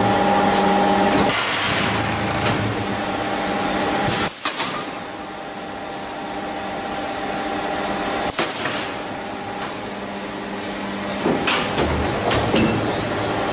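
Blow moulding machine making polycarbonate LED bulb shells, running through one moulding cycle. A steady hum with a held tone runs under two loud hisses of compressed air, about four and eight seconds in, then a few sharp clicks and knocks near the end as the tooling moves.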